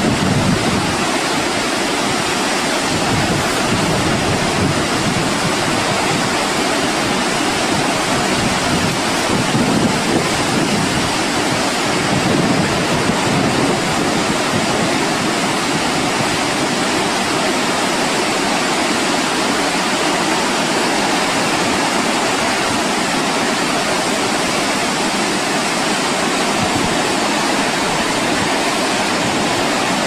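Large waterfall: a loud, steady rush of falling water, with wind buffeting the microphone in an uneven low rumble.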